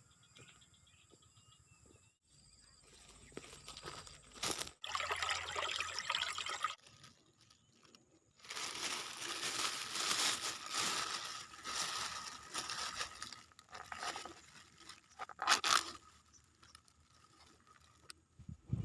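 Close rustling, crunching and scraping, as of mud, grass and water being disturbed, in two long stretches with a couple of sharp knocks. A faint, steady high insect buzz runs underneath.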